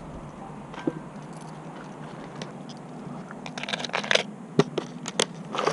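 Clear plastic tackle box being opened and handled, its lid and the lures inside clicking and clattering in short sharp bursts, busiest about four seconds in.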